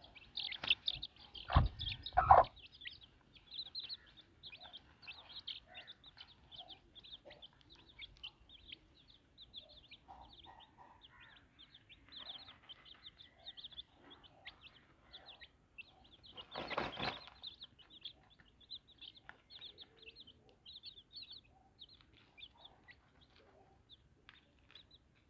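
Domestic chicks peeping continuously in quick, short, high cheeps, with a few lower clucks from the brooding hen. Two louder rustling bursts break in, the loudest about two seconds in and another around seventeen seconds in.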